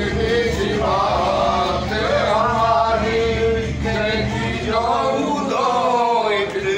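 Male voices singing a Hari bhajan, a Hindu devotional song, in a drawn-out melody with long held notes.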